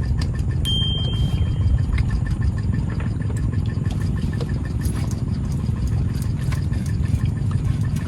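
A small boat's engine running steadily, with a faint regular ticking over the low rumble.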